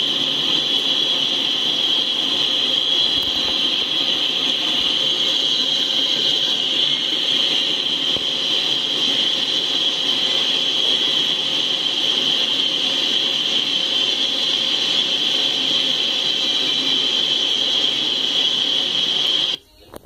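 Loaded coal hopper cars of a freight train rolling past, a steady rush of wheel-on-rail noise with a constant high whine over it, heard through a live-stream trackside camera's microphone. Near the end the sound cuts out suddenly as the stream stalls.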